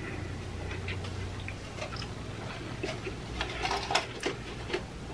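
Quiet handling noises: scattered soft clicks and taps that get busier about three seconds in as a fountain-drink cup is picked up, over a low steady hum.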